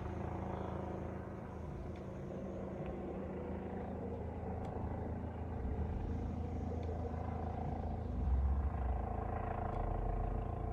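Low, steady, engine-like rumble and hum, which grows deeper and louder about eight seconds in.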